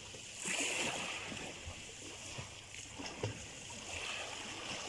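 Shallow seawater sloshing and splashing around people wading and swimming off a pebble beach, with a few short, louder splashes, the sharpest about three seconds in.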